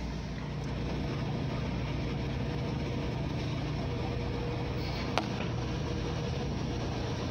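Portal-type (gantry) automatic car wash running steadily on a foam-covered car: an even mechanical hum and noise, with a single sharp click about five seconds in.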